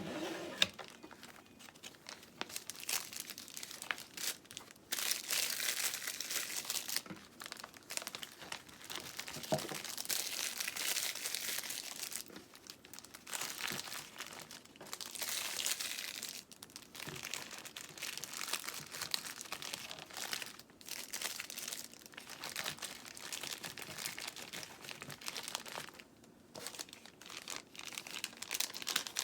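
Plastic bags being handled, crinkling and rustling in irregular bursts with short pauses between them.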